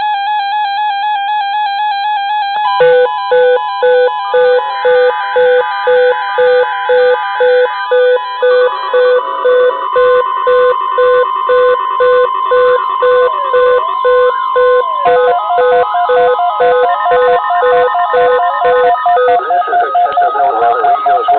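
Layered electronic alert tones: a warbling tone, joined about three seconds in by beeps pulsing about twice a second. More tones and short up-and-down pitch sweeps pile on into a dense, loud stack.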